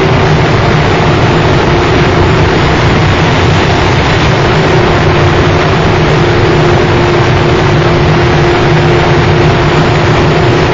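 Noise-music track: a loud, dense, unchanging wall of noise over a low droning hum, with a steady held mid-pitched tone that drops out and returns.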